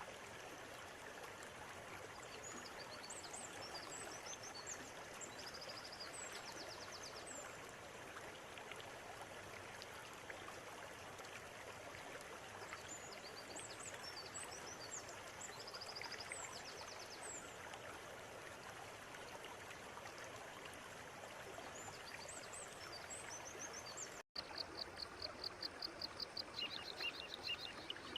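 River water flowing steadily, with birds chirping high above it in short bursts every several seconds. About 24 seconds in the sound drops out for an instant, and then louder, rapidly repeated bird calls come in over the water.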